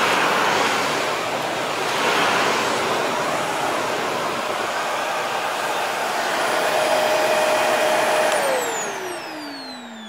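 Vacuum cleaner running with a loud rushing airflow; a steady whine comes up near the end. About eight seconds in it is switched off, and the motor winds down with a steadily falling whine as the rush fades.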